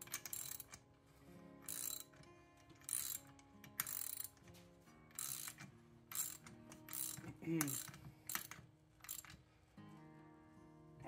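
Socket ratchet clicking in about ten short runs, one with each back-swing of the handle, as the clutch centre nut is run tight. The clicking stops a little before the end.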